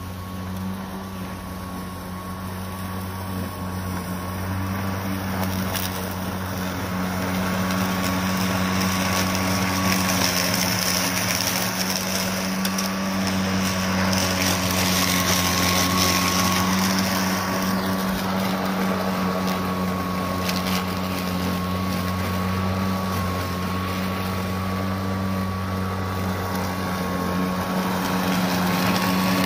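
Greenworks Pro 60-volt brushless 21-inch cordless push mower running with its blade spinning, cutting grass with the side discharge fitted: a steady electric hum with a thin high whine, growing louder over the first several seconds as it comes closer.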